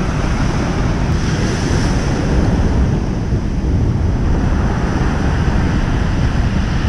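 Ocean surf breaking and washing up a pebble beach, with wind buffeting the microphone in a steady low rumble.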